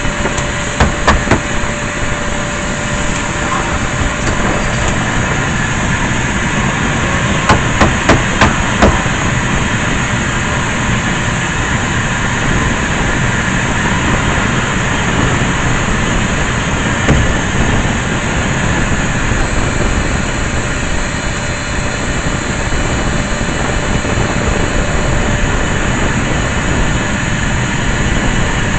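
Vacuum cleaner running steadily, with sharp knocks: three about a second in and four or five more around eight seconds in.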